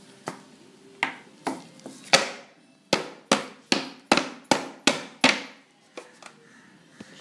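Repeated knocks on the bottom of an upturned metal cake tray to tap the set, pre-cut coconut barfi squares out onto newspaper. There are a few spaced knocks, then a quicker run of about seven, each ringing briefly.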